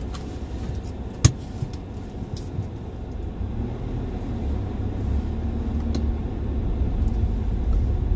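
Hyundai i20's 1.2-litre naturally aspirated petrol engine and tyres heard from inside the cabin as the car pulls away: a low rumble that grows gradually louder, with the engine itself barely heard. A sharp click sounds about a second in.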